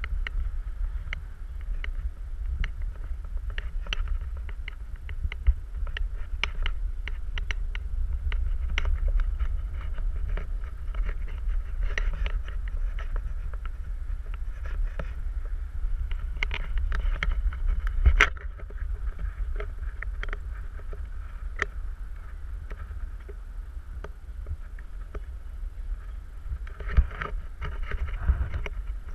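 Wind buffeting an action camera's microphone as it swings through the air on a giant stadium rope swing, a steady low rumble, with many scattered sharp clicks and a louder one about 18 seconds in.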